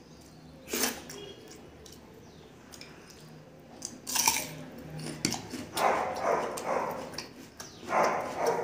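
A crisp bite into a whole raw onion about four seconds in, then close-miked crunchy, wet chewing of the onion and a handful of rice. A sharp click comes about a second in.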